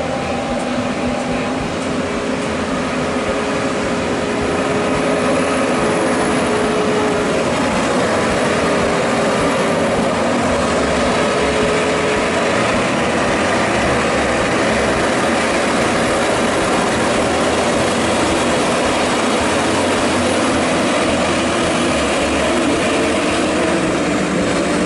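Heavy diesel tractor-trailer engines working hard on a steep climb: a loud, steady drone that grows louder about four seconds in and then holds.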